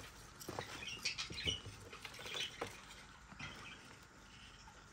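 Dubia roaches being handled and put back down: faint scratchy rustling with scattered light clicks.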